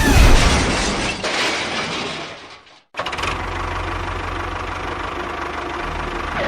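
A noisy rushing sound fades out, then after a brief break an engine runs steadily with a low, rapid knocking pulse.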